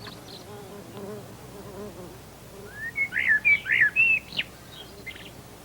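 A bird chirping: a quick run of bright chirps, rising and falling, about three seconds in.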